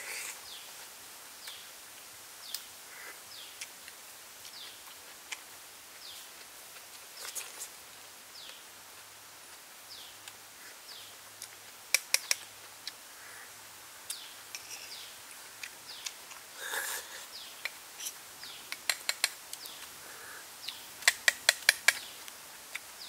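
Sharp clicks in quick runs from snail shells being handled and picked at with a bamboo stick while eating: a few past the middle, then a quicker run of about seven near the end. Birds chirp lightly throughout.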